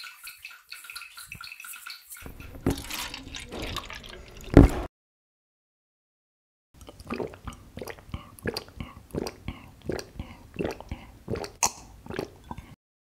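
Juice poured into a plastic cup, ending in a sharp knock, then after a pause a run of short dripping, gurgling sounds, about two a second, as the juice is sucked up through a plastic straw.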